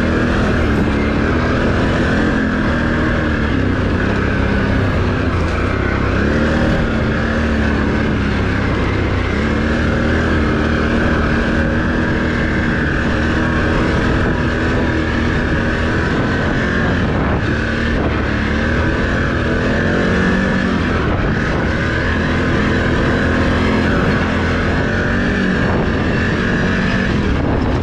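Can-Am Renegade ATV engine running under way, its revs rising and falling again and again as the throttle is opened and eased off, over steady wind and trail noise.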